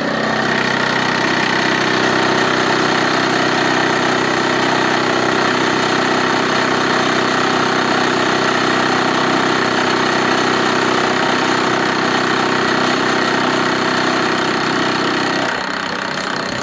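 Milling machine running steadily, a constant machine hum with a higher whine above it; the sound drops away about a second before the end.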